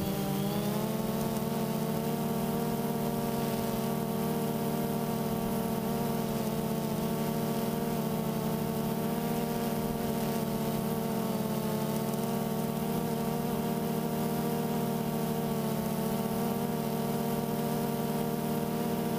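DJI Phantom 2 quadcopter's four electric motors and propellers giving a loud, steady buzzing drone, recorded from the aircraft itself. The pitch shifts briefly at the start as the motors change speed, then holds even.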